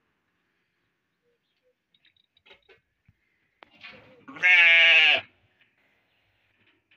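A local Syrian (baladi) sheep bleats once, loudly, for under a second, its pitch wavering and dropping as the call ends. A few faint clicks come before it.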